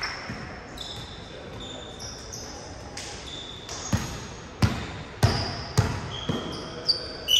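Sneakers squeaking briefly on a gym floor several times. From about four seconds in, a ball bounces on the hard floor about twice a second.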